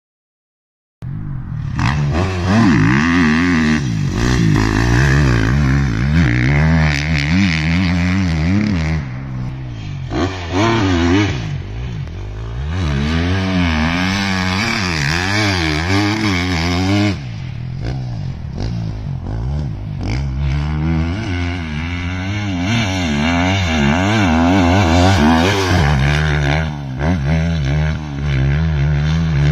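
Motocross dirt bike engine revving hard as the bike rides the track, its pitch rising and falling again and again with throttle and gear changes. The sound cuts in about a second in.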